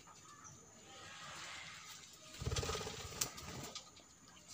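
Faint chirping of small pet parrots kept as lovebirds in an aviary. About two and a half seconds in comes a short, low, muffled sound, and a sharp click just after.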